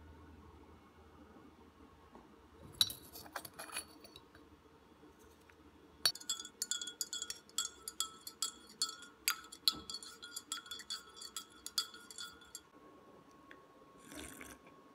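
A metal teaspoon stirring a drink in a ceramic mug, clinking against the sides several times a second for about seven seconds, each clink ringing briefly. Before that, a few scrapes and taps of the spoon in a ceramic sugar bowl about three seconds in.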